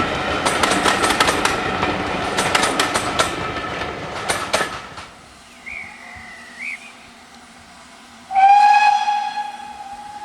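Carriage wheels clattering rhythmically over rail joints as a train passes, fading out about five seconds in. About eight seconds in, a steam locomotive's whistle sounds one loud, steady tone for about two seconds.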